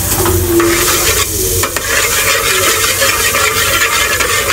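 Butter sizzling as it melts in a hot aluminium pot, stirred with a metal spoon against the pot.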